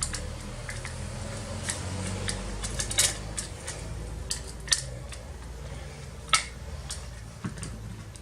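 Scattered light metallic clicks and clinks of small hardware being handled: the metal drive bracket, the SSD and its screws. The sharpest clicks fall about three, four and a half and six seconds in, over a steady low hum.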